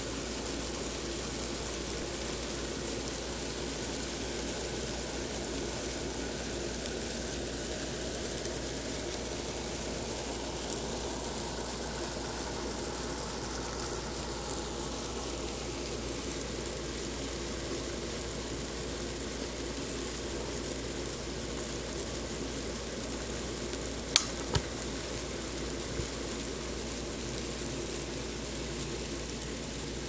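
A mass of mealworms crawling over one another among grain, making a steady fine crackling rustle, with a few sharp clicks about three-quarters of the way through.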